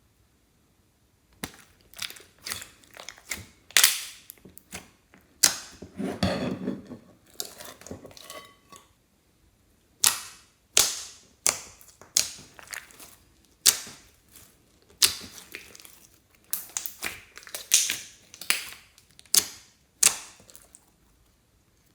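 Clear slime being squished and worked by hand, giving sharp sticky pops and crackles in irregular runs with short pauses, and a softer, fuller squelch about six seconds in.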